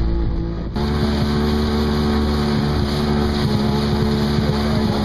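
Jet ski engine running steadily while under way, with water and hull hiss; about a second in the sound jumps suddenly to a fuller, hissier pitch and then holds steady.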